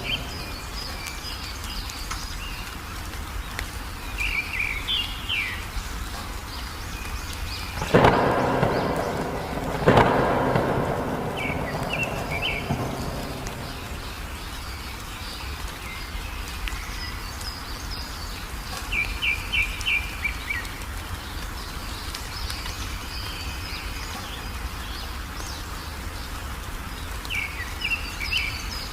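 Small birds chirping in short repeated series over steady rain, with two sudden thunderclaps about eight and ten seconds in, each rumbling away over a few seconds.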